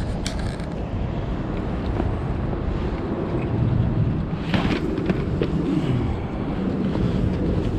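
Wind buffeting the microphone as a steady low rumble, with a few sharp knocks, the clearest about four and a half seconds in.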